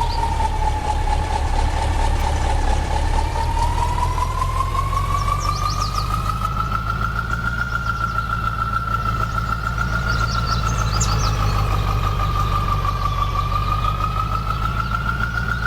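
An engine running at a steady idle, with a whining tone that slowly sags and then rises in pitch over it.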